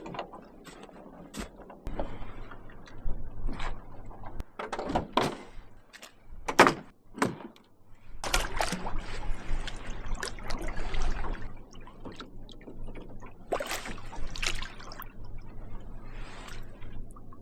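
Canoe paddle strokes splashing and dripping in lake water at an uneven pace, about one every second or so, with occasional sharp knocks.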